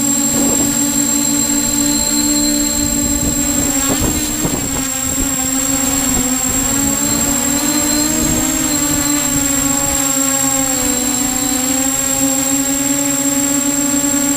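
Y6 multirotor's six electric motors and propellers running in flight, a steady whine whose pitch shifts up and down as the throttle changes, most unsettled from about four to eight seconds in.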